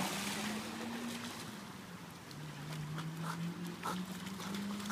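Splash of a dog leaping into the water, the spray falling back and dying away over the first second, then small sloshes as it swims. A steady low engine-like drone runs underneath, stepping up slightly in pitch.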